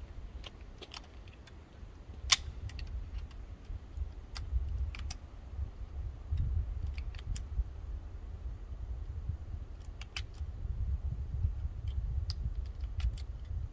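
Scattered sharp metallic clicks and clacks from handling the SAR K2 .45 ACP pistol and its cartridges, one clack about two seconds in the loudest, with wind rumbling on the microphone.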